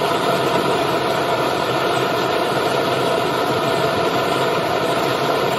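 Hose-fed gas torch burning steadily, a constant rushing noise from its flame.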